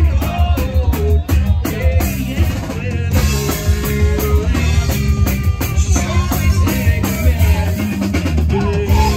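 Live band playing loud through a PA: a drum kit keeping a steady beat over bass and electric guitar, in an instrumental stretch between sung lines.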